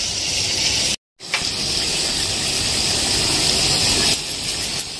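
Bitter gourd sizzling steadily in hot oil in a kadai, with a brief dropout to silence about a second in.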